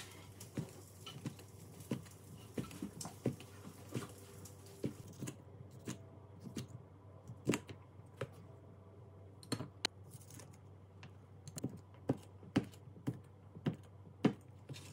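Light, irregular taps and clicks of kitchen utensils and dishes, about one or two a second, over a faint low steady hum.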